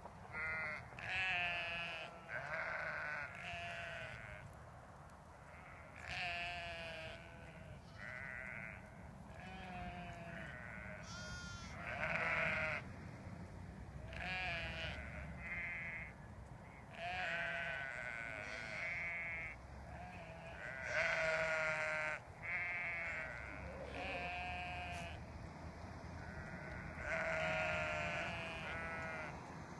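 Sheep and lambs bleating over and over, many calls overlapping, each a wavering call about a second long, coming every second or two.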